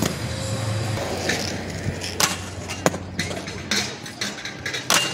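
Aggressive inline skates grinding a low metal rail, then wheels rolling on concrete, with several sharp clacks.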